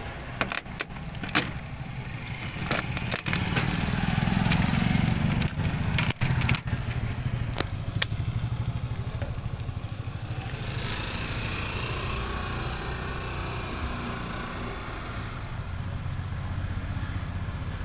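An engine running steadily throughout. Over the first several seconds there are sharp snaps and crackles as the plastic sheet lining a car door is pulled away from its sticky sealant.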